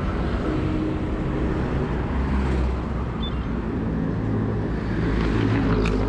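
Road traffic noise: motor vehicles passing, a steady, continuous sound.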